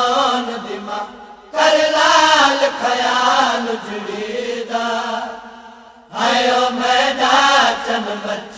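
A single voice chanting a mournful Punjabi lament in long, wavering, held phrases. The singer pauses for breath twice, and new phrases begin about a second and a half in and again about six seconds in.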